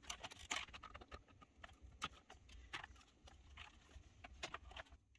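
Faint, irregular small clicks and taps of plastic as the Acorn Electron's keyboard ribbon cable is pressed onto its connector and the keyboard is handled.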